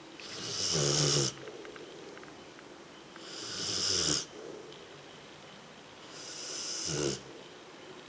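Rottweiler snoring in its sleep: three long snoring breaths about three seconds apart, each growing louder and then cutting off sharply, a hissing rasp over a low rumble.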